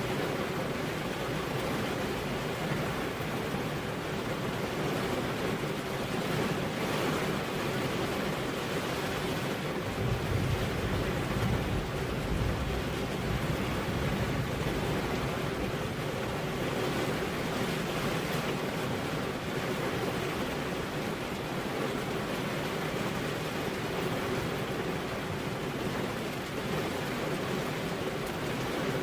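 Steady rain, an even hiss at a constant level without pauses; a low rumble swells briefly about ten seconds in.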